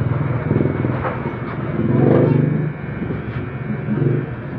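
Electric hair clippers buzzing as they shave a man's head close to the scalp, the buzz swelling louder for about half a second near the middle.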